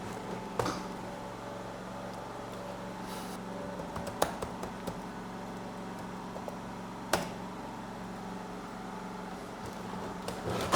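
Steady low electrical or fan hum, with three sharp clicks about half a second, four seconds and seven seconds in.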